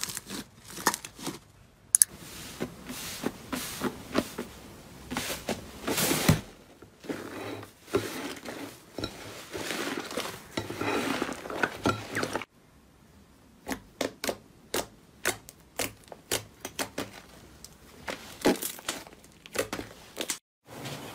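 Hands kneading, stretching and squeezing slime: a dense, wet crackling and clicking as air pockets in the slime pop. About halfway through, the crackle gives way to a run of separate sharp pops.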